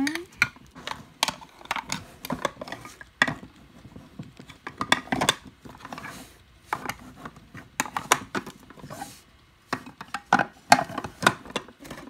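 Small hard plastic parts of a miniature Re-Ment toy refrigerator clicking and tapping as they are handled: a clear crisper bin being fitted in and drawers being slid and set. The clicks are sharp and irregular, scattered throughout.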